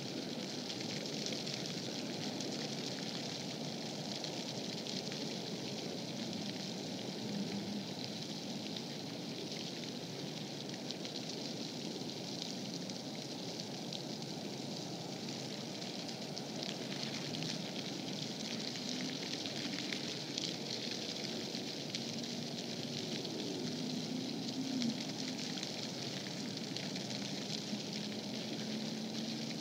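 Steady hissing outdoor background noise, with faint low hums in the second half.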